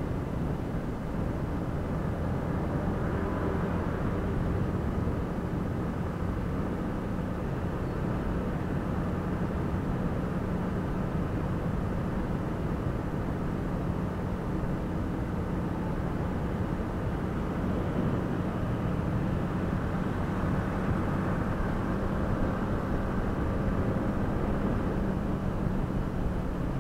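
Yamaha MT-15's 155 cc single-cylinder engine running steadily in sixth gear at highway cruising speed, with no revving or gear changes, under a steady rush of wind and road noise.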